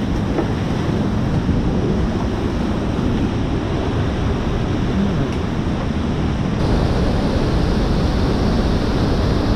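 Steady rush of whitewater: river rapids pouring over a rock ledge and falls. About two-thirds of the way through the rush changes abruptly and grows slightly louder as a bigger waterfall takes over.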